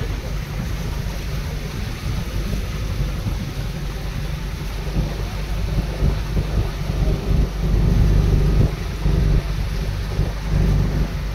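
Wind buffeting a microphone on a moving boat: a rough, fluttering low rumble over the wash of the water. It grows louder in the second half.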